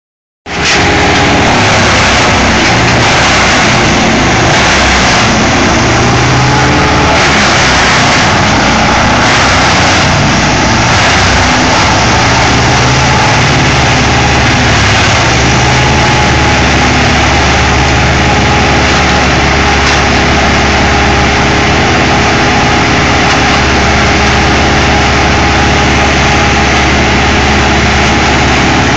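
Large 24-inch wood chipper running under heavy load as it chips a 20-inch log and then a 4-inch limb, which snaps as it is pulled in. The engine runs throughout. Over the first ten seconds or so there is a rapid series of crunching pulses as wood is chipped, and after that a steadier drone.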